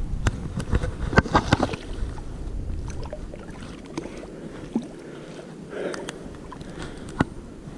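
Water splashing at the bank's edge as a small rainbow trout is brought in by hand, with a cluster of sharp splashes and knocks about a second in, then quieter lapping and rustling. Low wind rumble on the microphone in the first half.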